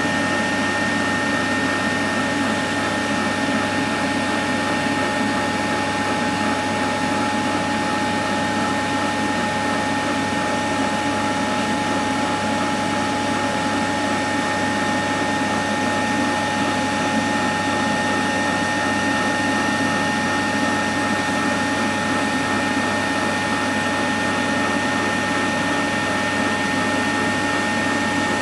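Tefal ActiFry hot-air fryer running, its fan and paddle motor giving a steady whir with a constant high whine.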